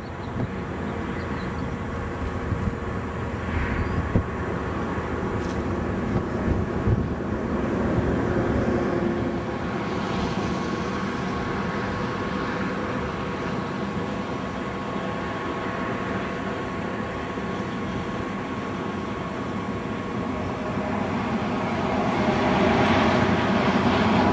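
Highway traffic: semi trucks driving past, a steady road rumble that grows louder near the end.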